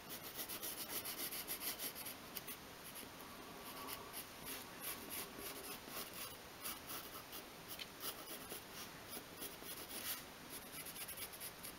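Faint pencil scratching on thin obeche wood as a line is drawn around a paper template, in many quick short strokes, densest in the first two seconds.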